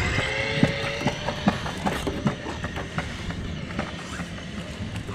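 Riding inside a vehicle: a low steady rumble with many small rattles and clicks, and a thin steady hum during the first second.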